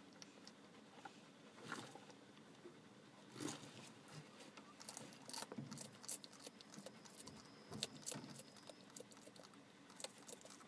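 Bearded dragon feeding: scattered sharp clicks and crunches as it snaps up insects from a loose pellet substrate, with the pellets rattling. The clicks come thick and fast from about three seconds in.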